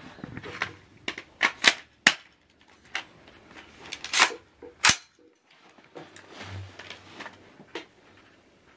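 Sharp metallic clicks and clacks, about eight at uneven intervals, as a ZRODelta Zulu AR-style .223/5.56 rifle is handled and loaded with a magazine seated in the magwell. The loudest are a pair about four to five seconds in.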